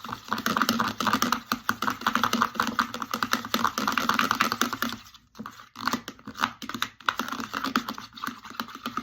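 A foamy mixture of shaving cream, slime activator and colouring stirred in a bowl, with rapid clicking and scraping strokes. The stirring stops for a moment about five seconds in, then goes on with fewer strokes.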